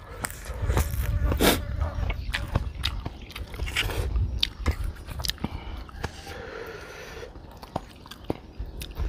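A person chewing and crunching a mouthful of green papaya salad, with short sharp clicks of a metal spoon against the plate as he scoops more.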